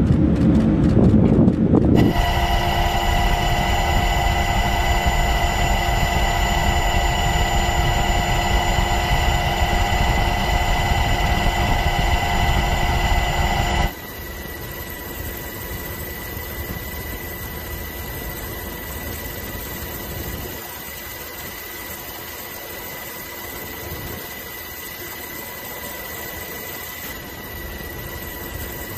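Steady aircraft engine drone with several high, fixed whines, as heard from inside the aircraft. A low rumble fills the first two seconds, and about halfway through the sound cuts abruptly to a quieter drone.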